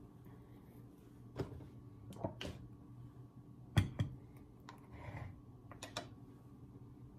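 Scattered clicks and knocks of kitchen handling: a glass mixing bowl and utensils being moved and set on the countertop, the loudest knock a little under four seconds in, over a steady low hum.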